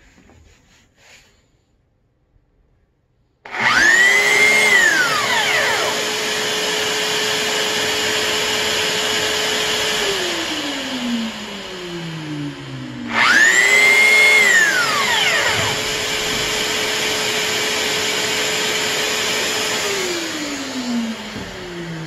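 Bosch GAS 10 PS extraction vacuum and the handheld corded power tool plugged into its auto-start socket switching on together, twice: about 3.5 s and 13 s in. Each time the tool gives a quick rising-then-falling whine as it spins up, both run steadily for about six seconds, then both wind down with falling pitch.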